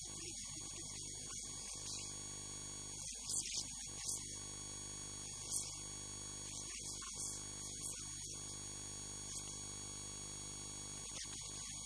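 Steady electrical mains hum in the recording, with several steady high-pitched whining tones above it, broken by a few short hissy clicks near the middle.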